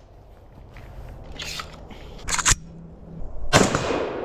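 Rifle shots: two quick sharp cracks about two and a half seconds in, then a louder shot near the end whose sound dies away slowly.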